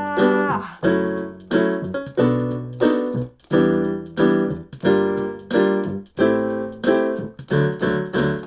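Keyboard playing piano-voiced chords in a steady rhythm, about two a second, each chord struck and left to decay; a held note ends about half a second in.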